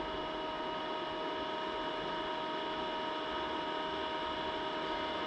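Projector's cooling fan running steadily: an even hiss with a few faint, steady whining tones.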